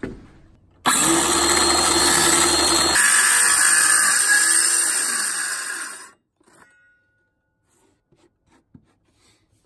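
Ryobi circular saw starting abruptly about a second in and cutting into the wooden subfloor for about five seconds, its tone changing partway through, then cutting off suddenly.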